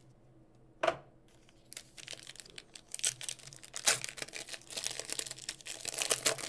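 Foil wrapper of a Panini Prizm trading-card pack being torn open and crinkled: a dense run of crackling from about two seconds in, after a single sharp tap about a second in.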